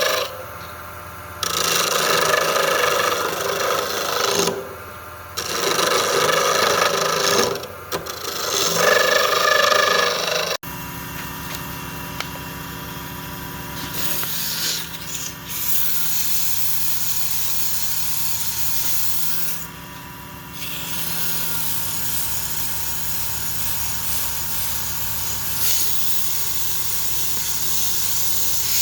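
Abrasive rubbing, as from filing or sanding, in strokes with short pauses. About ten seconds in, it gives way to a steady hiss of a running motor-driven shop tool.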